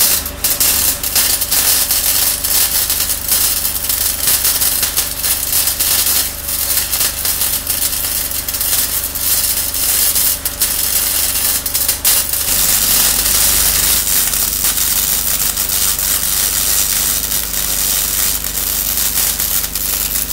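Wire-feed (MIG) welder tacking and seam-welding a steel window frame into a shipping container's steel wall: a steady, dense arc crackle.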